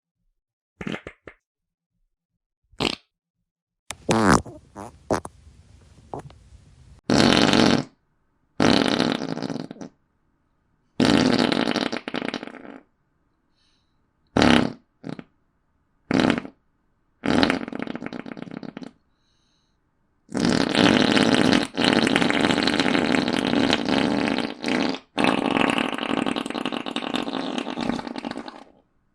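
A run of about a dozen separate fart sounds, one after another with short silent gaps: brief pops and splutters early on, then longer drawn-out ones, the last two lasting several seconds each.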